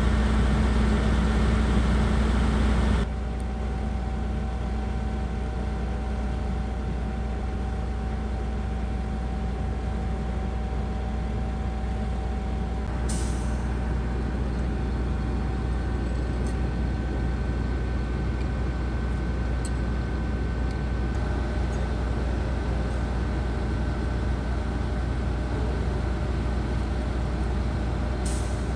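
Heavy tow truck's diesel engine running steadily at the roadside, with a steady high whine over its low hum. Two short hisses of air sound, about 13 seconds in and again near the end.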